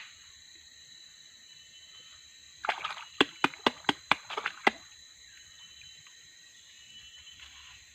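Steady high-pitched insect chorus. About two and a half seconds in it is broken by a quick run of about seven sharp clicks or knocks over two seconds.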